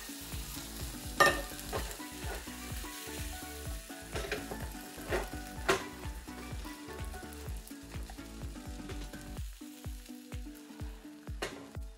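Food sizzling as it fries in a pan, with utensil stirring sounds and several sharp clinks against the pan, the loudest about a second in. Background music with a steady low beat plays underneath.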